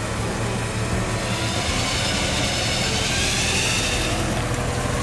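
Vehicle engines idling while an electric winch (a Smittybilt 10,000 lb) hauls a stuck Toyota LandCruiser backwards out of a muddy water hole. A higher whine comes in about a second and a half in and fades out around four seconds in.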